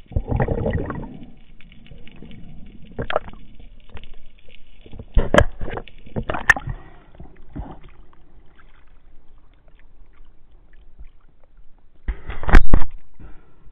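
Underwater handling noise from a spearfisher's camera: a rush of water movement at the start, then scattered sharp knocks and clicks as the speared sargo is pulled in on the spear. About twelve seconds in, a loud splashing, gurgling burst as the camera breaks the sea surface.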